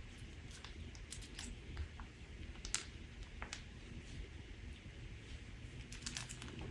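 Crunchy slime being pressed and squeezed by hand, giving sparse, irregular crackles and clicks with a few small clusters of pops, over a low steady hum.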